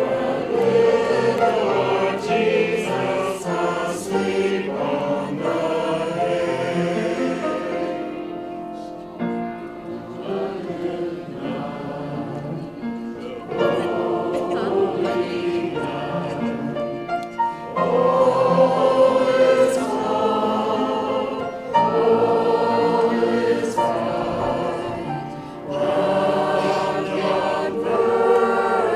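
Several voices singing together in harmony as a group, phrases of held notes with short dips between them.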